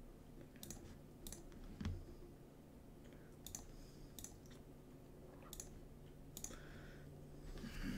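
Computer mouse clicking: about nine single, sharp clicks spaced unevenly, over a faint, steady low hum.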